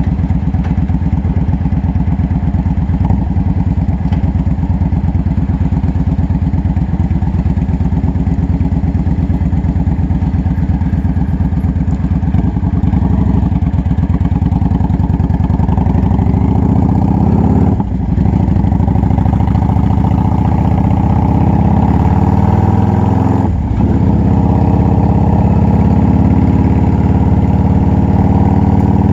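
Yamaha V-Star 650's air-cooled V-twin running through Vance & Hines Longshot exhaust pipes while the bike is ridden, heard from the saddle. It pulses steadily at low revs at first, then rises in pitch as it accelerates in the second half, dipping briefly twice as gears are changed.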